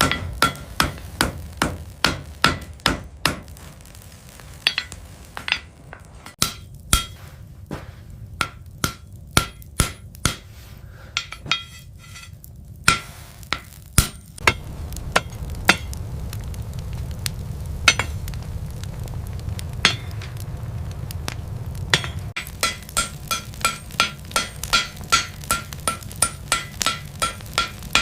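Hand hammer striking hot steel on an anvil, repeated ringing blows at about two to three a second. The blows thin out about halfway through while a low steady rumble sits underneath, then come quickly again near the end.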